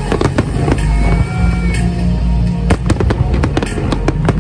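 An aerial fireworks display: many sharp bangs and cracks from bursting shells, coming irregularly and close together, over music with a deep, steady bass.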